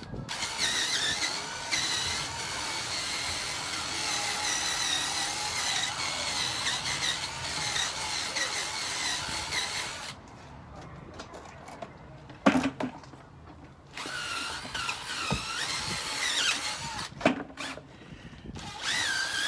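Cordless drill spinning a scrubbing brush against a car tire and wheel. The motor whines steadily for about ten seconds and stops, then runs again for a few seconds with its pitch wavering. A couple of sharp knocks fall in the pause and just after.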